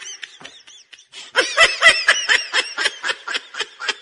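A person laughing in a quick run of breathy giggles, fainter at first, loudest a little over a second in, then trailing off toward the end.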